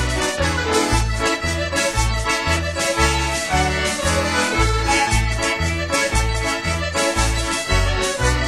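Instrumental music with sustained melody notes over a steady, bouncing bass of about two notes a second.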